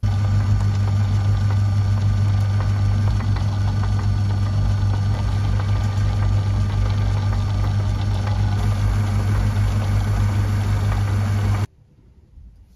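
Small metalworking lathe running under power: a steady motor and spindle hum with a strong low drone, which cuts off abruptly about a second before the end.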